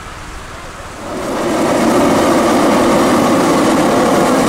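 Hot-air balloon's propane burner firing in a long, steady roar that swells in about a second in and holds, as the balloon lifts off.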